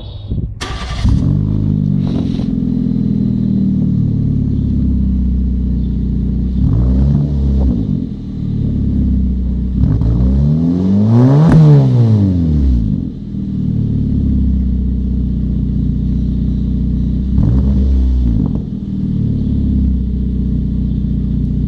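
Peugeot 207's 1.4-litre four-cylinder engine running through a Luzian aftermarket sport exhaust, idling with three throttle blips. The middle blip is the longest and revs highest, rising and falling over about three seconds.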